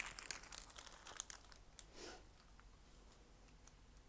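Clear plastic film on a diamond painting canvas crinkling as the canvas is handled: dense crackling for about the first two seconds, then only faint scattered rustles.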